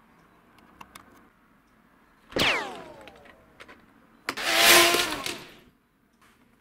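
Two edited-in cartoon sound effects. About two and a half seconds in, a short falling, whistle-like glide. Near the five-second mark, a louder, longer hissing whoosh, with a few faint clicks before them.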